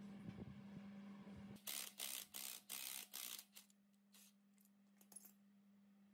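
Cordless impact wrench driving a gear puller's screw in about six short bursts in under two seconds, pulling a sprocket off its shaft, followed by a few light metallic clicks as the freed sprocket is handled.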